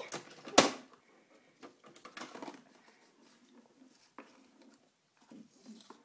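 Plastic doll and toy playset being handled by hand: scattered light clicks and rustles, with the loudest knock and rustle about half a second in and another rustle about two seconds in.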